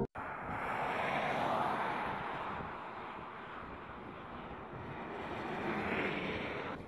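Road noise of vehicles driving past on a highway: a rushing of tyres and wind that swells about a second in and again near the end, as the solar car and its escort cars go by.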